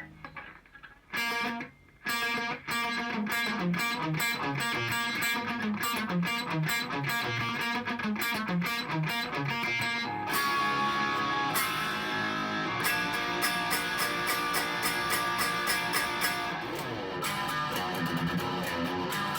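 Electric guitar played through a guitar amp and a cabinet loaded with Celestion Vintage 30 speakers. It plays a riff of single notes for roughly the first ten seconds, then switches to strummed chords.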